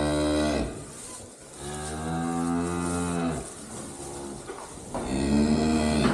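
Cattle mooing: three long moos, the first fading about half a second in, the second starting near two seconds in and lasting well over a second, the third beginning near the end.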